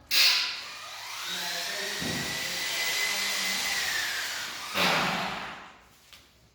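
Electric motor running with a steady high whine for about four seconds: a sharp noise at the start, a louder surge near the end, then it dies away.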